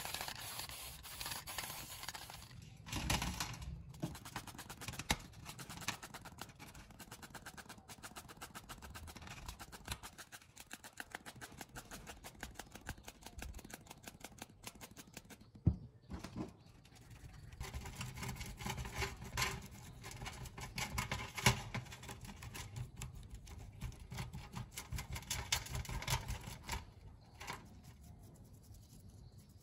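Small bristle brush scrubbing a circuit board in a metal tray: a quick scratchy rubbing, with a couple of sharp knocks of parts against the tray.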